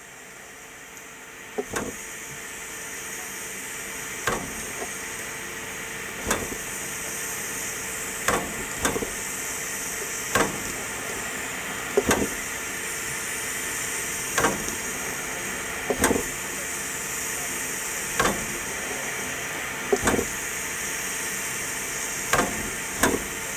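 Steam hissing steadily from a standing steam locomotive, with a short sharp knock about every two seconds.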